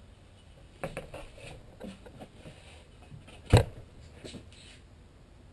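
Wooden teardrop trailer door being set down and shifted on a sheet of aluminum skin: a few knocks and clicks about a second in, one loud thump a little after halfway, and light taps after it.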